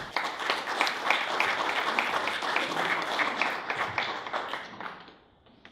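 Small audience applauding, the clapping thinning and dying away near the end.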